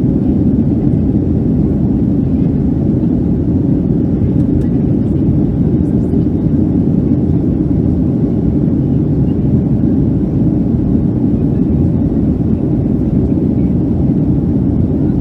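Steady low noise of a Boeing 757-200's engines and airflow, heard inside the passenger cabin.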